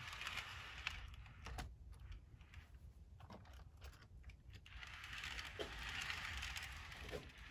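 Faint light plastic clicks and rattles of HO scale Backpacker well cars being handled and pushed together on the model railroad track, with a soft rubbing hiss about five seconds in.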